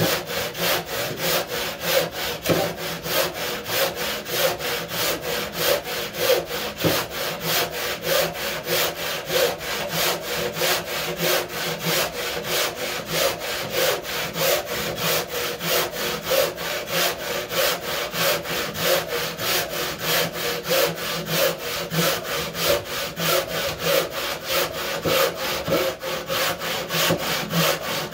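Hand saw whose teeth cut on both the push and the pull, crosscutting through wooden table legs clamped side by side. Steady back-and-forth strokes, about three a second.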